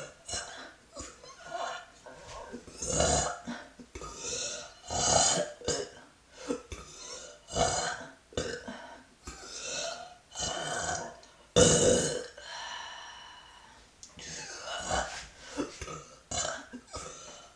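A woman burping over and over, a series of separate belches coming every second or two, the loudest about two-thirds of the way through.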